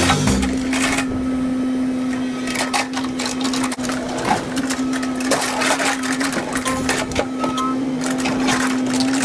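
Excavator engine running with a steady hum, under frequent irregular knocks and clattering as the machine works concrete from a retaining wall.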